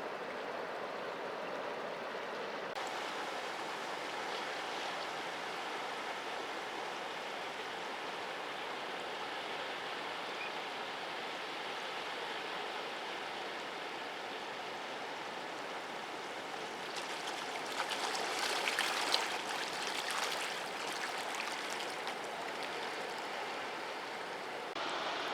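Sea waves washing on a rocky shore: a steady rush of surf, with one wave breaking louder and fizzing over the rocks about two-thirds of the way through.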